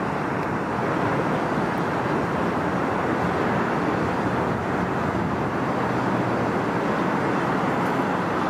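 R68 subway train running along elevated steel track, a steady noise of wheels on rails and the structure.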